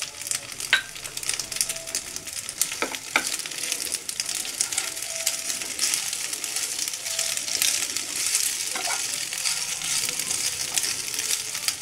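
Penne pasta and broccoli sizzling in oil in a non-stick frying pan while a spatula stirs and tosses them, with scraping and scattered light clicks of the spatula against the pan.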